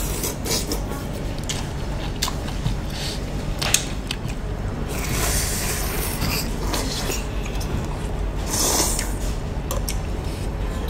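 Close-up eating sounds: chewing and slurping of hotpot meat and noodles, with sharp clicks of chopsticks against bowls.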